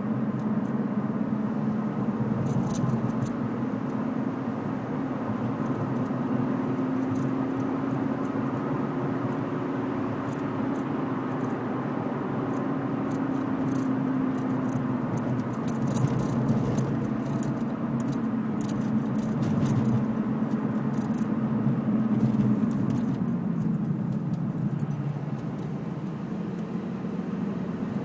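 Car driving with a steady droning hum from the tyres on the road, its pitch drifting slowly up and down, with scattered light rattling clicks. The owner suspects loud tyre noise.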